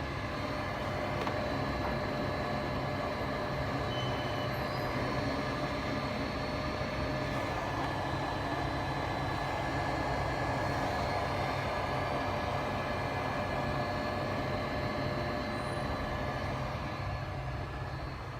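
Steady mechanical hum and rumble, with a few faint steady tones over it, running without a break.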